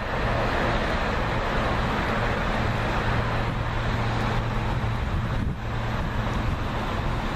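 Amtrak passenger train running past at speed and moving away: a loud, steady rumble of wheels on rail with a low hum underneath.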